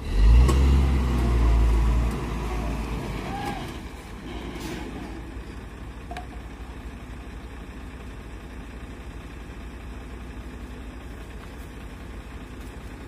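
Heavy diesel truck engine revving hard for about two seconds, easing off, then running steadily at a low level.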